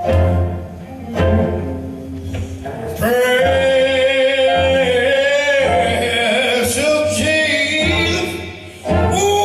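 Blues band music: guitar lines over a pulsing bass, then from about three seconds in a voice sings long, sliding held notes over the band.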